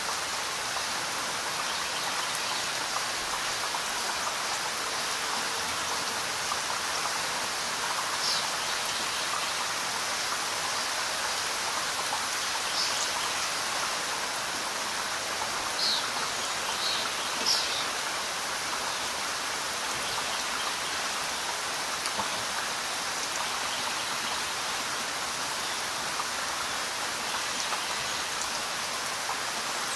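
Steady rain falling, an even hiss, with a few brief high-pitched ticks standing out around the middle.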